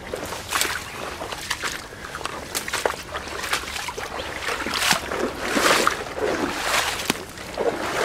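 A person wading on foot through shallow floodwater and thick mud: irregular sloshing, splashing steps as each foot is pulled out of the mud, the loudest about two-thirds of the way through.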